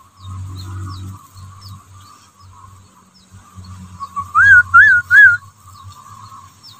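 A person whistling three quick, identical rising-and-falling notes about halfway through. It is the angler's whistle to call wader fish to the bait, as fish come closer when whistled to.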